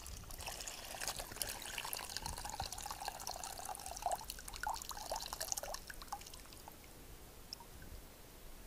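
Thin stream of water poured from a canteen spout into a plastic bowl, splashing and trickling, tapering off about six seconds in.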